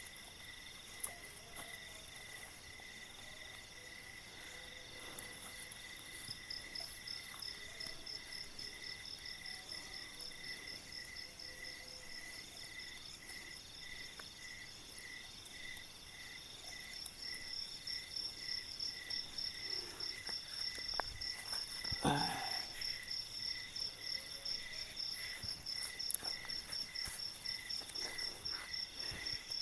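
Night insects, crickets, chirping steadily: one with a slow, even chirp, joined about six seconds in by a higher, faster-pulsing one that grows louder later on. A brief knock comes about two-thirds of the way through.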